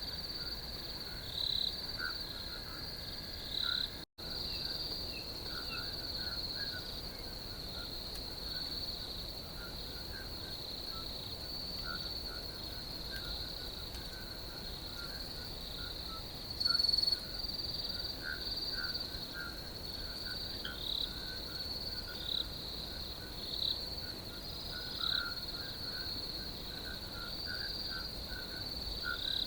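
Crickets chirping in a steady, high-pitched chorus, with other short chirping calls scattered through it. The sound cuts out for an instant about four seconds in.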